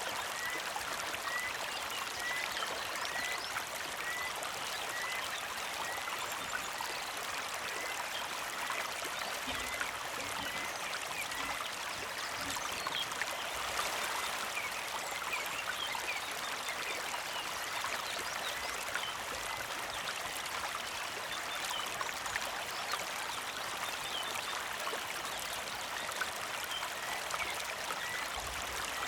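Creek water trickling and babbling steadily, with a bird repeating a short high chirp over and over.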